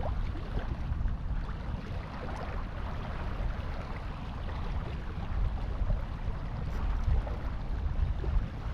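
Wind buffeting the microphone: an uneven, gusting rumble, with a fainter steady hiss above it.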